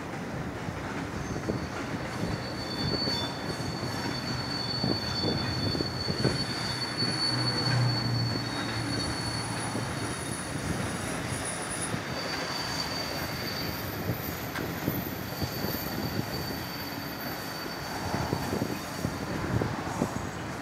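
Train wheels rolling slowly over rail joints, a steady rumble with scattered clicks. A thin, high, steady wheel squeal sounds through much of it and dies away near the end.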